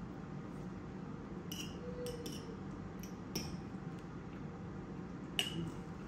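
A metal fork clinking against a bowl while eating: about half a dozen short, sharp clinks, the loudest near the end, over a steady low room hum.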